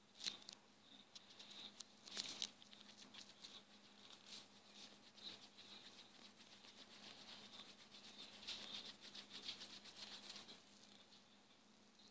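Faint scratchy ticking of scribbling on a phone touchscreen, a few separate taps at first and then a fast, even run of ticks that stops about two seconds before the end.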